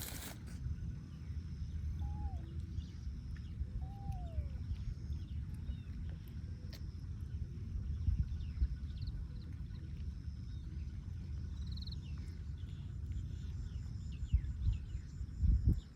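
Faint animal calls over a steady low rumble: two short calls that rise and fall, about two seconds apart, and many small high chirps, with a couple of knocks near the end.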